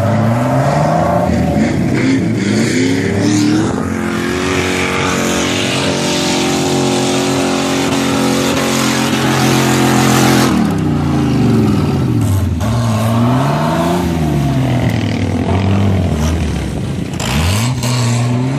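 Nissan Patrol 4x4 engine revving hard as it claws up a soft sand dune. The revs climb and hold high for several seconds, drop sharply about ten seconds in, then surge up and down repeatedly as the driver works the throttle in the sand.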